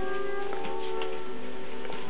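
A slow tune of long, overlapping chime-like notes, each held for a while, with a few faint clicks.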